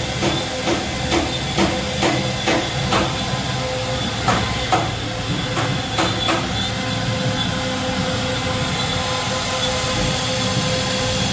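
A CNC router running while it cuts wood: a steady machine hum with a held whine. A regular pulse comes about twice a second through the first six seconds, then the sound evens out.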